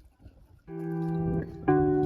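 Music: sustained guitar notes come in about two-thirds of a second in, and a new note follows about a second later.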